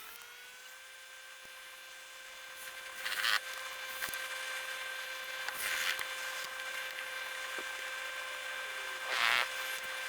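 Handheld power tool's electric motor spinning up, running at a steady speed, and winding down just after the end, with a few short scraping or handling noises over it.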